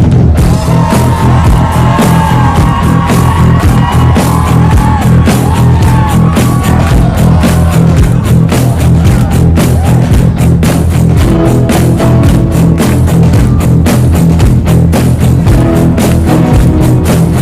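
Loud music with a heavy bass line and a fast, steady beat.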